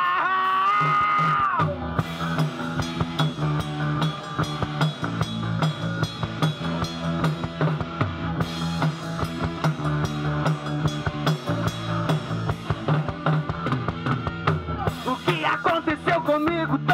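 Rock band playing live: a held, wavering note rings out and stops about a second and a half in, then drum kit and electric bass play a steady driving groove, with a melodic line coming in near the end.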